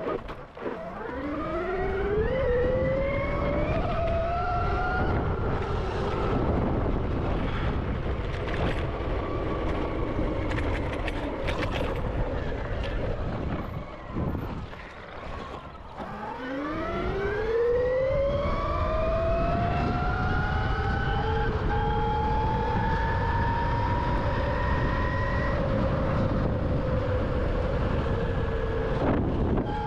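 Electric dirt bike's motor whining as the bike accelerates, the pitch rising about a second in and again, longer and higher, around halfway before levelling off. Steady wind and tyre rumble run underneath.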